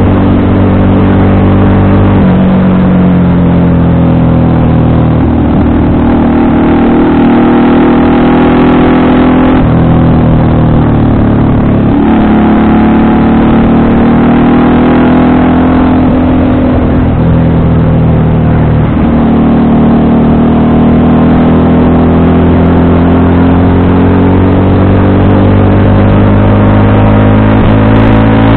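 FKM Victorino 250i V-twin motorcycle engine running under way, recorded raw on the bike. Its note climbs and then drops back several times, with a sharp dip about two seconds in and another near ten seconds.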